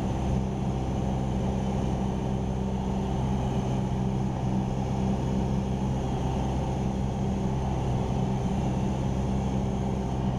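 Cessna 172R Skyhawk's four-cylinder Lycoming IO-360 engine and propeller droning steadily in cruise flight, heard inside the cockpit.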